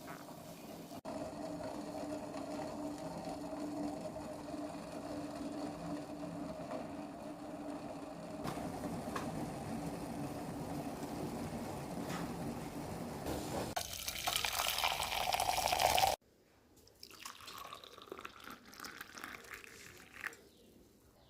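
Hot herbal coffee poured into a glass: a splashing pour that rises in pitch as the glass fills and stops abruptly. Before it a steady low hum and hiss; after it a few small clicks.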